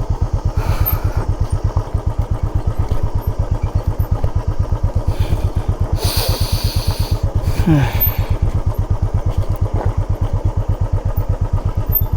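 Motorcycle engine running at low revs with a steady, rapid low pulsing beat while the bike is ridden slowly down a rough, steep trail, with a brief hiss about six seconds in.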